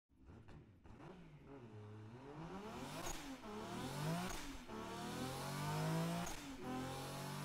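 Car engine revving and accelerating through the gears, its pitch climbing and dropping back at each shift, fading in and growing louder.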